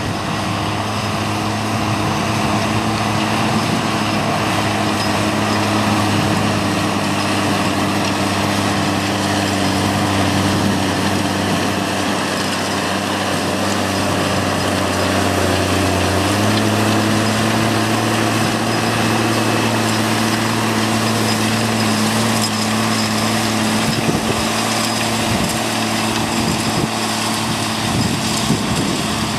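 New Holland T7050 tractor's six-cylinder diesel engine running steadily under load as it pulls a seed drill across the field. Its pitch steps up slightly a little past halfway.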